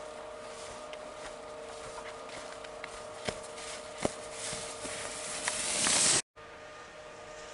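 Skis scraping and hissing over snow, growing louder as the skier comes close and passes, then cut off suddenly. Two sharp clicks come a few seconds in, over a faint steady hum.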